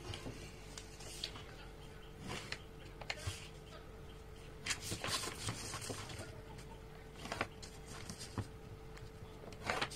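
Light, scattered rustles and taps from a large paper sheet and a plastic ruler being handled and set down on a table while a pencil marks the paper, with a faint steady hum underneath.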